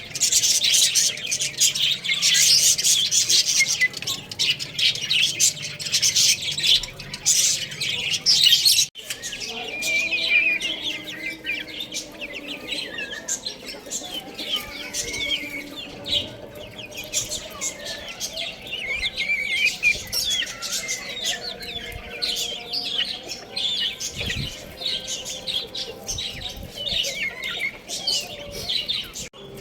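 A crowd of baby chicks peeping continuously, many short, high, falling cheeps overlapping. The chorus is dense for the first nine seconds or so, then breaks off abruptly and goes on thinner and more spaced out.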